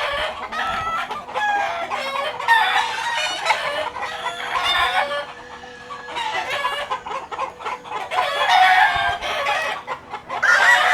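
Gamefowl chickens clucking and calling, with roosters crowing. Near the end a loud crow rises and holds a long note.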